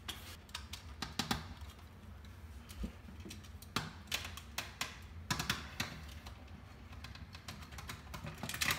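Irregular small clicks and taps of a cover being fitted and pressed onto an under-cabinet LED light fixture, coming in scattered clusters.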